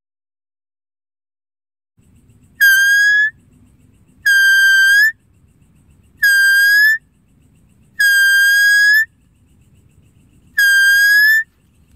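Deer-calling sound: five loud, whistle-like calls at one steady high pitch, each under a second long and turning slightly up at the end, about two seconds apart over a faint low rumble. They start after two seconds of silence.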